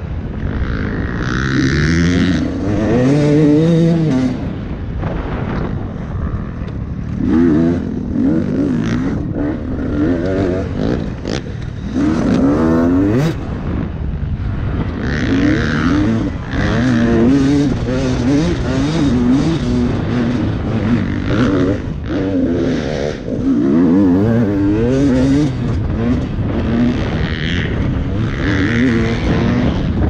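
Dirt bike engine ridden hard off-road, revving up and dropping back again and again as the rider works the throttle and gears, its pitch climbing and falling every second or two.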